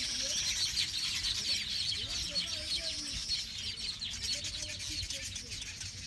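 A colony of weaver birds chattering, with many fast, high chirps overlapping into a continuous din. It grows a little fainter near the end.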